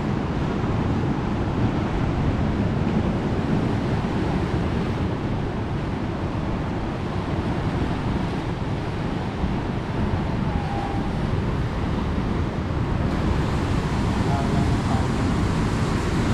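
Ocean surf washing over shoreline rocks, mixed with wind buffeting the microphone: a steady noise, heaviest in the low end.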